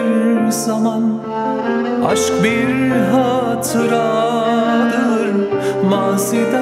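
Turkish acoustic ballad: a male voice singing a wavering, ornamented melody with a bowed violin, over long held low bass notes.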